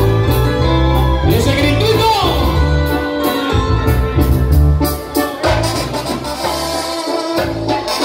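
Live Latin band music: a brass section of trumpets and trombones over keyboard, a heavy bass line and drums, playing a dance rhythm.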